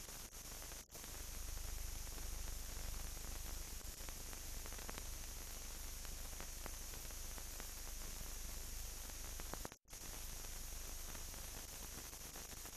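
Steady hiss with a low hum underneath, the noise floor of an old film soundtrack with no recorded sound from the scene. It drops out briefly about a second in and again near ten seconds.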